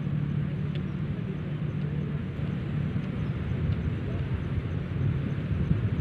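A steady low engine drone from a motor vehicle, running evenly without clear rises or falls, over open-field ambience.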